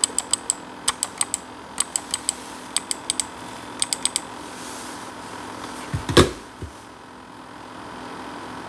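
Computer mouse clicking in quick bunches of two to four through the first four seconds, with a single loud knock about six seconds in. Under it, the Dell XPS 9570 laptop's cooling fan runs steadily at idle, with no load; it is a worn fan that has started making an annoying noise.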